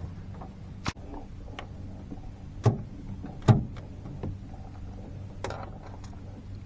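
Four sharp knocks and thumps, the loudest two close together in the middle, over a steady low hum.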